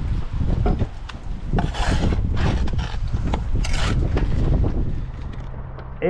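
Irregular rough scraping and rubbing with scattered knocks, over a low rumble of wind on the microphone.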